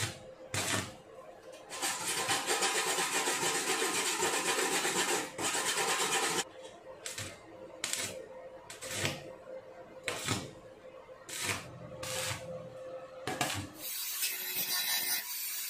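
Hand tool work on a part: a long stretch of continuous rubbing and scraping, then about a dozen separate strokes. A steady hiss starts near the end.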